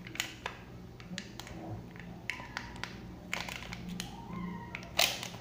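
Soft crinkling of a clear plastic sleeve and scattered light clicks as a coiled USB-C cable is squeezed back into it by hand, with a louder rustle near the end.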